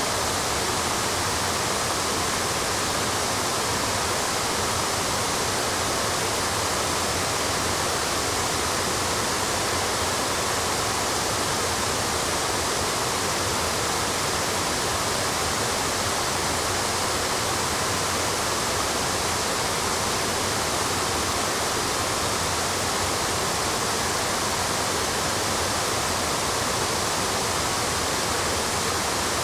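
Water rushing steadily down the Mäntykoski waterfall's granite cascades, a constant even roar.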